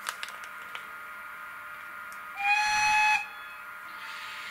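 Piko model DRG Class E 91 electric locomotive's sound decoder sounding a single short whistle blast, held at one steady pitch for under a second, about two and a half seconds in. A few light clicks come near the start.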